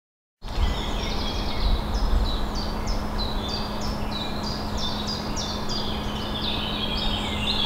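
Woodland birdsong: several birds singing together in many quick, falling chirps, over a low rumble and a faint steady hum. It starts about half a second in, after silence.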